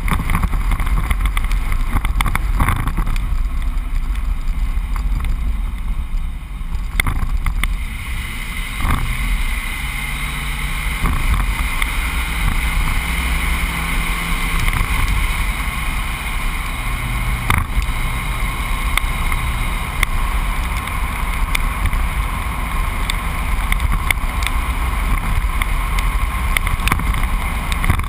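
A truck driving steadily along a road: a continuous low rumble of engine and tyres with wind noise on the microphone, and a few faint knocks.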